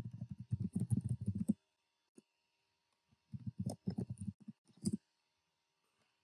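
Computer keyboard keys pressed in quick succession: a run of dull clicks lasting about a second and a half, then a second run a little after three seconds in.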